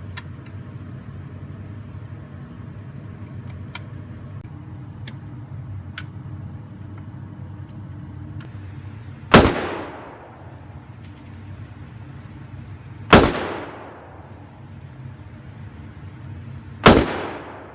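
Three single gunshots, each followed by a reverberant tail, roughly four seconds apart. The first comes about halfway through. Fainter sharp cracks come earlier, over a steady low hum.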